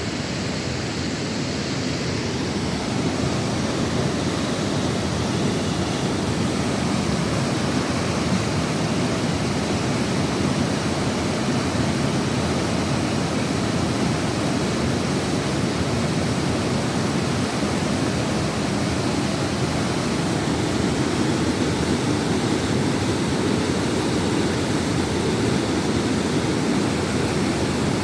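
Waterfall: a steady, unbroken rush of falling water, heaviest in its low tones.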